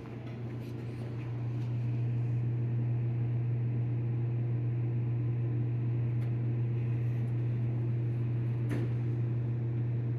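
Steady low machine hum with a few higher overtones, growing louder over the first two seconds as the elevator is approached. A couple of faint clicks come as the elevator doors slide shut.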